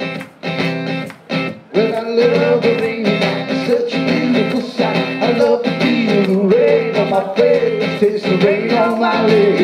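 Live acoustic guitar strummed in a steady country-rock rhythm, with a melody line over it. The strumming is sparse and choppy for the first couple of seconds, then settles into full, even playing.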